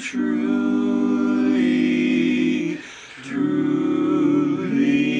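Men's barbershop quartet singing a cappella in close four-part harmony, holding long sustained chords, with a brief break about three seconds in before the next phrase.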